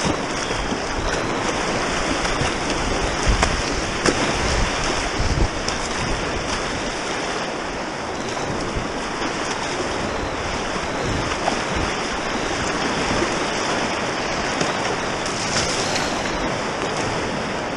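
Steady rush of river water around a down river kayak, with wind buffeting the microphone in low rumbles.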